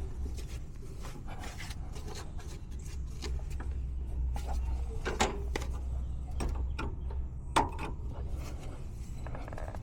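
Scattered clicks and knocks of tools and parts being handled during refrigeration repair work, with a sharper knock about five seconds in and another at about seven and a half seconds, over a steady low rumble.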